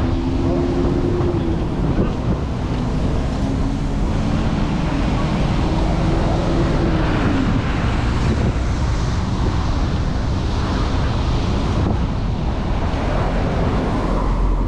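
Steady wind buffeting the microphone over the rush of sea surf. A passing vehicle's engine hum rises and falls through the first half.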